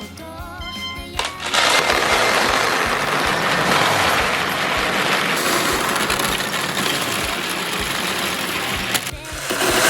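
Light background music, then from about a second and a half in a loud, continuous dense rattle of many glass marbles rolling together down a marble-run track. The rattle breaks off briefly near the end.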